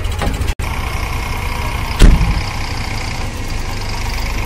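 Farm tractor diesel engine running steadily while hauling a loaded trolley over rough dirt, with one loud thump about two seconds in.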